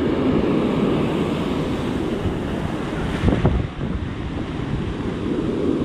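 Ocean surf breaking and washing up the beach in foamy whitewater, with wind buffeting the microphone.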